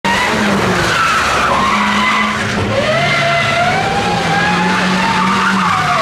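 Rally car driven hard on a stage, its engine running under load while the tyres squeal and skid; one pitch rises slowly and then drops near the end.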